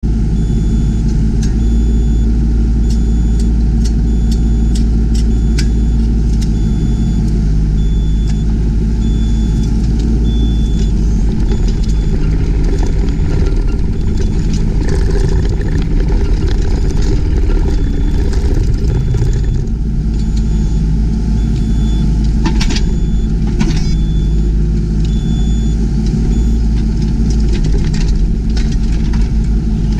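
Yanmar ViO20 mini excavator's diesel engine running steadily under hydraulic work, with scattered sharp knocks and clunks that come thicker near the end. A short high beep repeats about once a second for most of the stretch.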